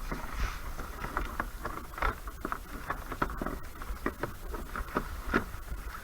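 Water lapping and slapping against a plastic kayak hull in many small, irregular splashes.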